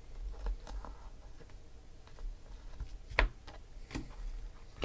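Stack of Upper Deck baseball cards being handled and flipped through by hand: faint scattered clicks and rustles as cards slide off the stack, with a sharper card tap about three seconds in and another about a second later.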